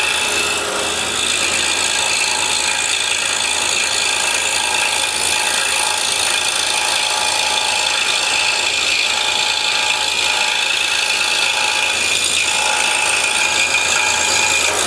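Scroll saw running and cutting through 1/4-inch walnut, a steady mechanical whir of the reciprocating blade with the rasp of the cut.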